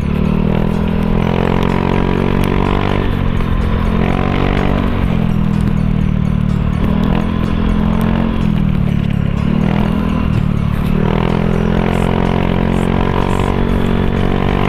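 Honda motor scooter running at riding speed, with wind on the microphone, and background music over it.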